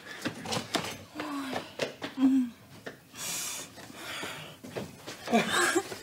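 A woman's voice making short, wordless hums and a breathy sigh of delight, with a few murmured voice sounds near the end.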